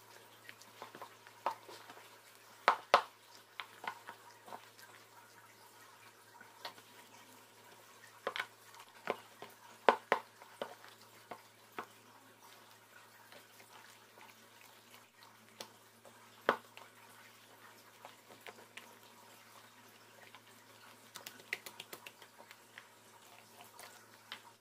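A gloved hand kneading and squeezing a wet rice-flour and palm-sugar batter in a plastic bowl: soft squelches and scattered sharp clicks, the loudest about 3, 10 and 16 seconds in. A faint steady low hum runs underneath.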